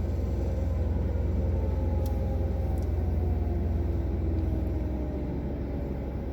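An American Signal Tempest T-128 rotating outdoor warning siren, far off, winding down. Its pitch falls slowly and it fades toward the end, over a steady low rumble.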